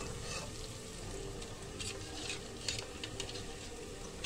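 Garlic, ginger and onion paste frying in hot oil in a steel pressure cooker, with a steady sizzle and a few light scrapes of a steel spoon against the pot.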